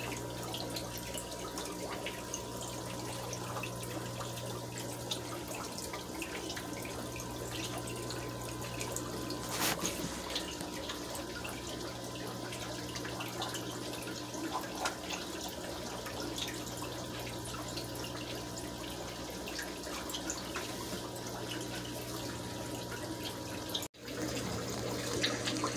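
Steady trickling and splashing of aquarium water, under a constant low electrical hum from the fish room's equipment. A single sharp click comes about ten seconds in.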